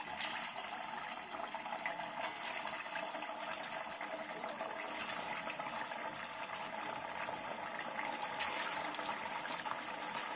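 Rice-flour vadas deep-frying in hot oil in a steel kadhai, the oil sizzling and bubbling steadily around them as more vadas are slipped in one by one.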